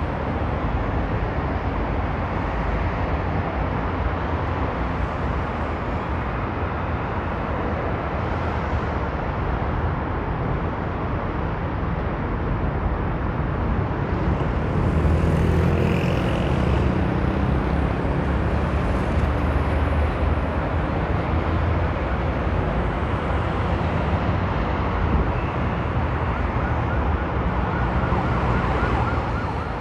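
Steady road traffic noise from cars on a busy multi-lane road, with a heavy low rumble. It swells a little about halfway through, with a brief higher tone.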